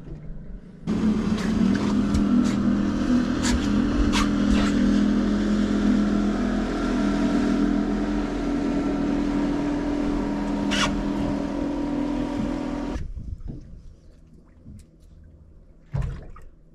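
Boat engine running at a steady speed, starting suddenly about a second in and cutting off abruptly near the end, with a few sharp knocks over it.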